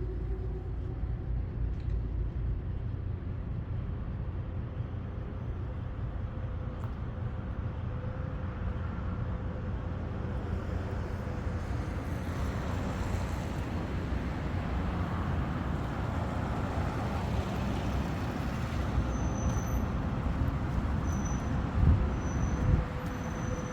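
City street traffic: a steady low rumble of passing vehicles that swells from about ten seconds in as a heavier vehicle draws near. A few short high squeaks come near the end, with two sharp thumps.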